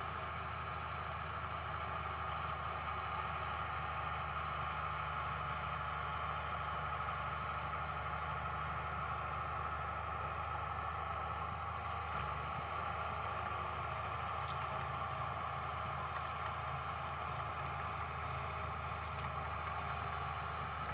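Heavy earthmoving machine's diesel engine running steadily: a low even drone with a steady higher whine over it.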